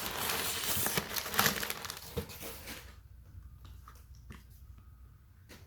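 Packaging crinkling and rustling as it is handled and opened, loud for about the first three seconds, then dropping to a few faint clicks and taps.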